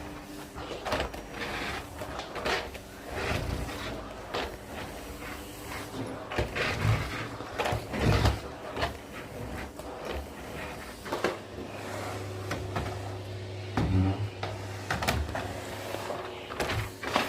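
Irregular knocks, clicks and clatter of household things being handled and moved during cleaning, like drawers and cupboard doors, with a low steady hum in the second half.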